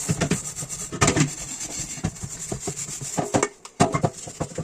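Dishes being scrubbed by hand: quick rubbing and scraping strokes against a dish, with small knocks as the dishware is handled.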